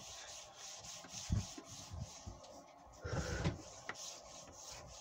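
Close rubbing and handling noise from a hand working right at the microphone, with a soft knock about a second in and a louder rustling rub at about three seconds.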